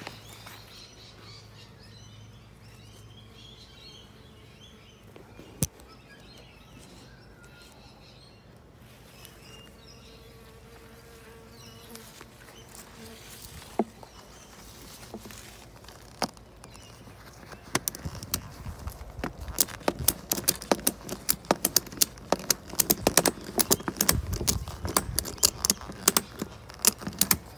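Honeybees buzzing around the hive, a faint steady hum with a few scattered clicks. From about two-thirds of the way in, a louder run of dense, irregular crackling and clicking takes over.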